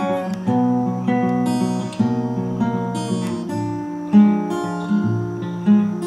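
Background music: an acoustic guitar strumming chords, each new chord struck sharply and left to ring.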